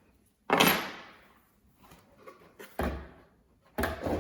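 A few knocks and clunks of hard objects being handled and set down, the loudest about half a second in, then two more near the end.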